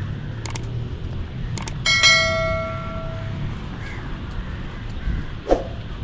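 A single metallic bell strike about two seconds in, ringing with several clear pitches for about a second and a half, over a steady low background hum. Near the end there is a short, loud sound that falls in pitch.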